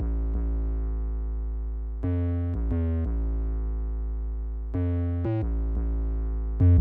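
Background music: a synthesizer and keyboard track with held chords over a heavy bass, changing chord about every two and a half seconds.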